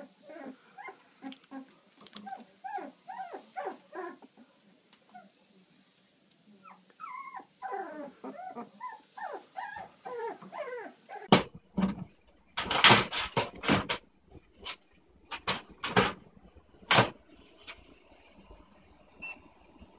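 Very young Labrador retriever puppies whimpering and squeaking, many short high calls in quick runs with a brief pause partway. After about eleven seconds come a string of loud, sharp knocks and scrapes, louder than the whimpering.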